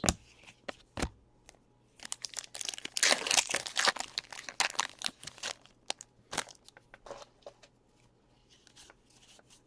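Plastic wrapper of a trading-card pack being torn open and crinkled: a dense crackling for about three seconds, starting about two seconds in, followed by a few light clicks as the cards are handled.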